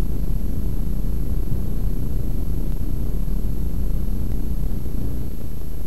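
Steady low rumbling noise with no distinct events, and a faint constant high-pitched whine above it.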